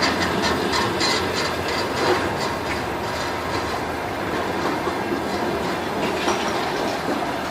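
Passenger coaches of a train hauled by a ChS4 electric locomotive rolling along the track, wheels clicking over rail joints against a steady rumble, the clicks thickest in the first couple of seconds and again near the end.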